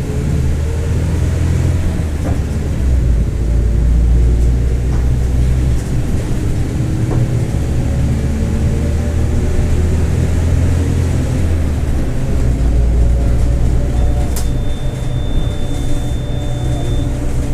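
Mercedes-Benz OF-1721 bus's four-cylinder diesel and drivetrain running under way: a heavy low rumble with a whine that slowly rises and falls with speed, the differential that the title calls growling. A thin steady high beep sounds for about three seconds near the end.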